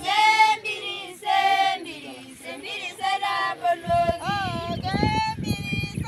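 High-pitched voices singing a melody, with a stretch of low rushing noise joining in about four seconds in.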